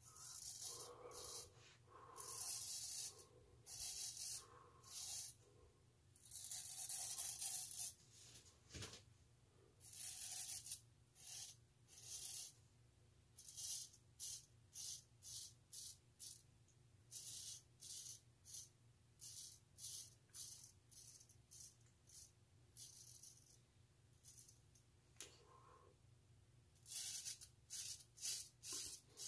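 Straight razor scraping through lathered beard stubble on a pass against the grain, a crisp rasp with each stroke. The strokes are longer in the first half and come in short quick strokes, about two a second, in the second half.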